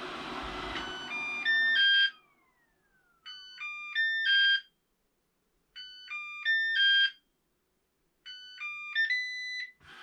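Coredy R750 robot vacuum playing its "Find me" locator signal, a short electronic jingle of stepped beeps repeated four times about every two and a half seconds. Its suction fan stops at the start, with a falling whine as it spins down.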